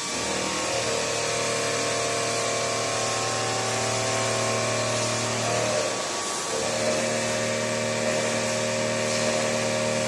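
Automatic wire stripping machine with its coil winder running: the electric feed motors give a steady whine over a constant hiss. The whine starts just after the beginning, drops out briefly about six seconds in, and starts again.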